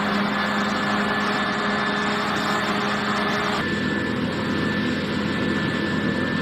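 Farm machinery engine running steadily during wheat harvesting, a low hum with a thin steady whine over it. The higher noise drops away abruptly about halfway through.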